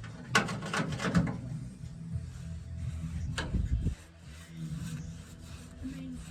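Hand rubbing and scraping, with several short sharp scrapes in the first second and another about three and a half seconds in, over a steady low hum.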